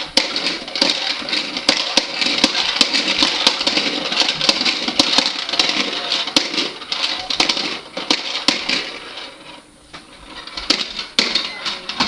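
Toy push vacuum with plastic balls in a clear dome, the balls rattling and popping against the dome in rapid clicks as it is rolled over carpet. The clatter eases off for a moment about three-quarters of the way through, then picks up again.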